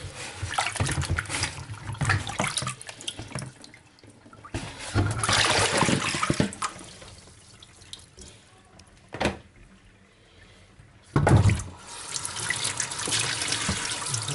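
Hands splashing and rubbing green plantains in a bowl of water in a stainless steel sink, then a gush of water into the sink about five seconds in. A sharp knock and a louder thump follow, and a kitchen tap then runs steadily while the plantains are rinsed.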